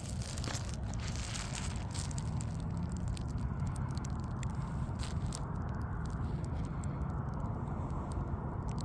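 Irregular clicks and crackles of close handling noise over a steady low rumble, busiest in the first few seconds and again near the end.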